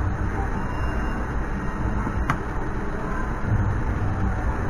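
Steady din of a casino floor full of slot machines, with one sharp click about two seconds in as a VGT Gems and Jewels slot machine is played and its mechanical reels start spinning.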